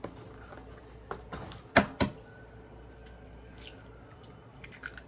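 A few sharp clicks and knocks of kitchen items being handled while pie filling is prepared, the two loudest close together about two seconds in.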